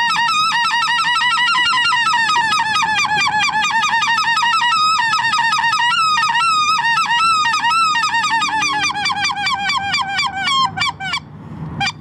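Goose call blown in a long, fast run of yodelling honks that break up and down in pitch. This is the throat-driven hail used to draw geese from far off. The tempo quickens toward the end, and the calling stops about a second before the end with one last short note.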